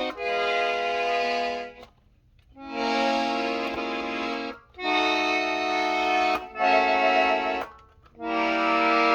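Hohner Tango II piano accordion sounding a series of held tones, each a second or two long, with short gaps between, as its keys are tried one after another to check each reed.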